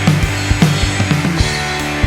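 Rock music: a full band of electric guitars, bass and drum kit playing a steady, driving beat.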